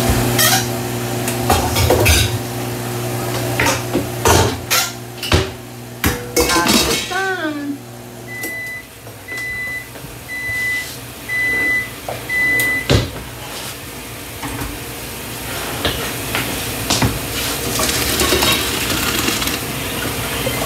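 A microwave oven runs with a steady hum, which stops about eight seconds in. It then beeps five times, about a second apart, to signal the end of its cycle. Pots and utensils clink and clatter before and after.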